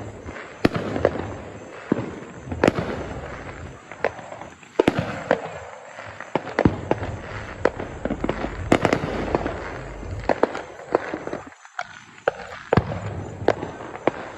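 Fireworks going off: many sharp bangs at irregular intervals, sometimes several within a second, over a continuous crackle and rumble.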